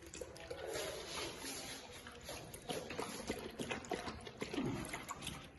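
German shepherd dogs making many short wet smacking mouth sounds, with one short falling whimper about four and a half seconds in.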